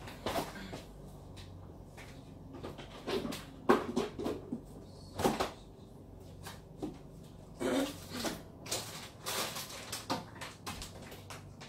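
Irregular kitchen clatter: scattered knocks, taps and short rustles of someone handling cupboards, dishes and food while making a sandwich, with a low steady hum underneath.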